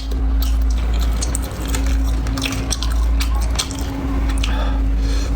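Close-up wet chewing and smacking of food in the mouth, many short sharp clicks and squelches, over a steady low hum.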